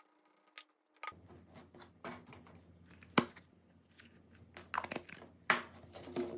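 Irregular sharp clicks and knocks of small phone parts being handled and worked by hand, the loudest about three seconds in and several more close together near the end.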